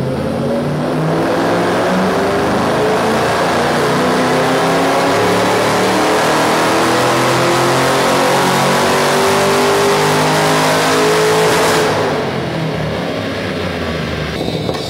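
Car engine making a long full-throttle pull on a chassis dynamometer, its pitch rising steadily for about eleven seconds. Near the end the throttle closes and the engine note drops away suddenly.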